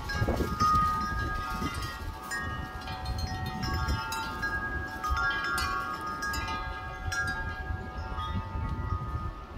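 Wind chimes ringing in gusty wind, struck over and over so that several steady notes overlap and hang, over a low rumble of wind on the microphone.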